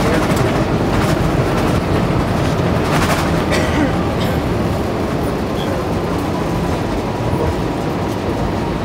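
Cabin noise of an Airbus A320neo rolling out on the runway after touchdown: a loud, steady rumble of wheels and engines, with a few sharp knocks in the first few seconds, easing slightly as the aircraft slows.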